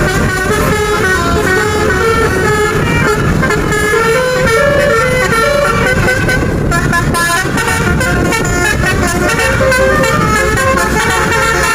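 Telolet multi-tone bus horns playing a fast tune of short stepped notes, over the steady low rumble of a bus engine.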